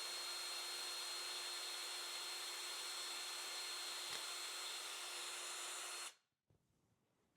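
Power drill running steadily while drilling a pilot hole for a mounting screw in a shower door's U-channel, with an even, constant whine; it stops suddenly about six seconds in.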